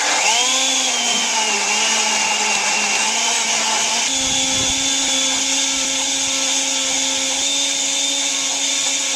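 Electric blender running at full speed, blending whole fruit, vegetables and water: a loud, steady motor hum with a high whine. The pitch steps up slightly about four seconds in.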